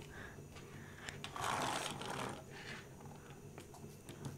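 Faint handling of plastic toy cars on a tabletop: a few light clicks and soft scraping as a Play-Doh car is hooked onto a toy tow truck.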